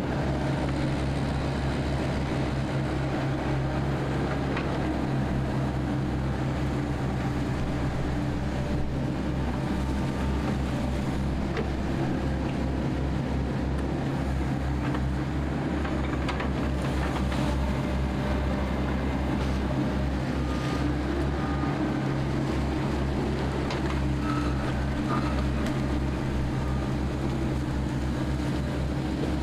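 Amphibious excavator's diesel engine running steadily under load as the machine digs with its boom and bucket, with a few faint knocks.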